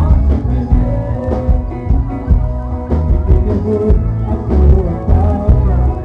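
Band music with a steady beat on the drum kit, electric guitar and a heavy bass line.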